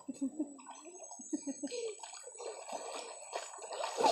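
River water splashing and sloshing as children swim and kick, with faint distant children's voices; the splashing grows louder near the end as feet kick the surface.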